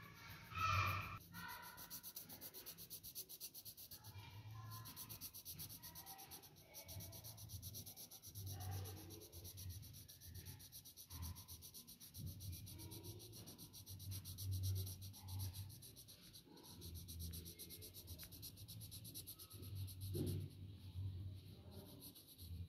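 Pencil scratching on drawing paper in short runs of strokes as it draws and shades, with one brief louder sound about a second in.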